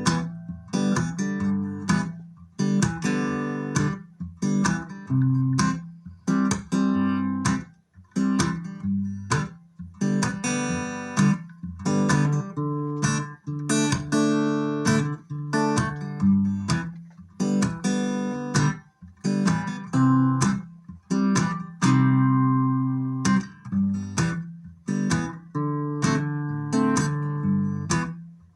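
Acoustic guitar strummed in a rhythmic country pattern, chords ringing between the strokes, in the instrumental break of a live country song with no vocals.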